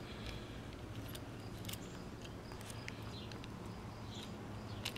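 Faint scattered clicks and rubbing from handling a plastic caliper and the watch, over a steady low hum of room tone.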